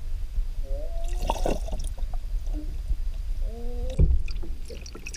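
Bathtub water sloshing, heard muffled through a camera held underwater, as a steady low rumble. A few knocks, about a second and a half in and again near four seconds, come from the plastic toy boat being handled under the water.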